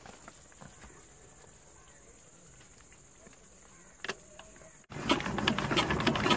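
Small single-cylinder 'Peter'-type diesel engine on a tube-well pump being started by hand: quiet at first under a steady high insect buzz, then about five seconds in a sudden loud, fast knocking as the engine turns over.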